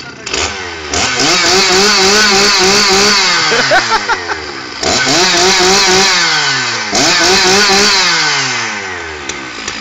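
Chainsaw engine revved three times: each time it climbs quickly to high revs, holds briefly, then winds back down.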